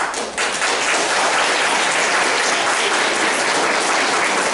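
An audience of children applauding, starting suddenly and holding steady.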